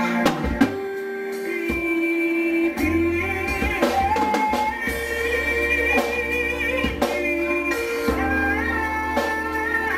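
Live gospel song: a singer's voice through a microphone and PA over amplified instrumental backing with drums, a bass line coming in about three seconds in.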